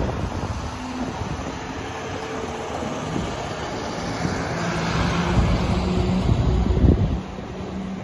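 Road traffic passing through the intersection. A car goes by first, then a school bus drives past; its engine drone and tyre noise build to their loudest about five to seven seconds in. Wind rumbles on the microphone.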